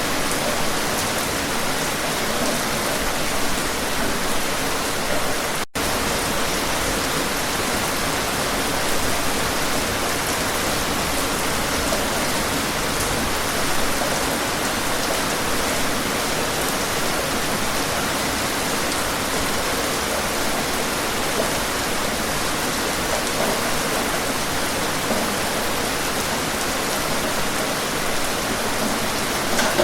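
Steady, heavy rain: a dense, even hiss of falling rain with no letup. It cuts out for an instant about six seconds in.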